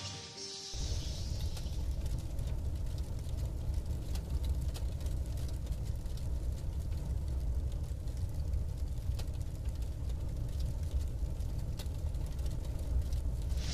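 Steady low rumbling background ambience with faint scattered crackles, starting as the last note of music dies away about half a second in.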